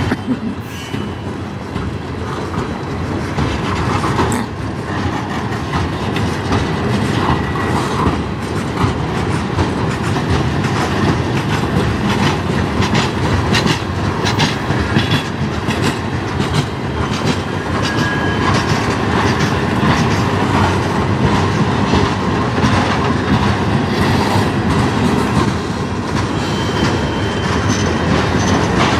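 Freight cars rolling past at close range: a steady rumble of steel wheels on rail with clickety-clack over the rail joints, and a few brief, thin wheel squeals now and then.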